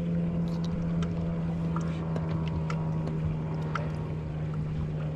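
A boat motor running steadily, a constant low hum, with light scattered ticks over it.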